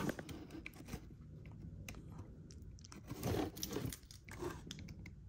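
Cardboard boxes rubbing and scraping against each other, with a few light knocks, as a heavy inner box is worked loose inside its cardboard shipping case. The loudest scrape comes a little past halfway.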